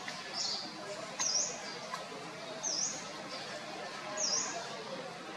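A bird calling over and over: four short, high chirps, each dipping and then rising in pitch, roughly one to one and a half seconds apart, over a steady outdoor hiss.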